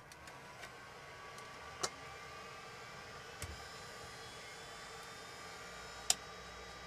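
Macintosh IIx starting up: a whine that rises in pitch over the first couple of seconds and then holds steady, typical of its hard drive spinning up, with a few sharp clicks, the loudest about six seconds in.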